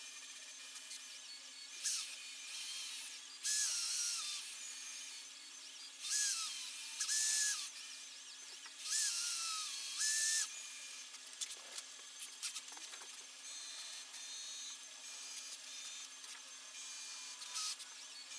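A small handheld power tool, its pitch dipping and rising under load, run in three short bursts of about a second and a half each, over a steady low hum, with a few clicks near the end.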